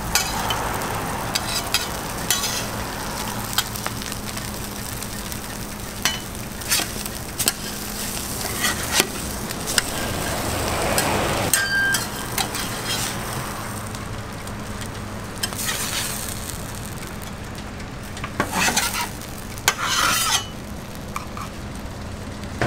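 Egg-and-pepperoni slabs frying on a flat-top griddle, sizzling steadily, while metal spatulas click and scrape against the griddle as the slabs are lifted and moved. A cluster of louder spatula scrapes comes about three-quarters of the way through.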